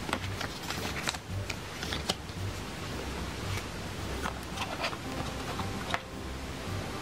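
Hands handling an iPhone box's contents: paper packaging crinkling and rustling, with scattered light clicks and taps, the sharpest about a second before the end as the coiled charging cable is lifted from the box's paper tray.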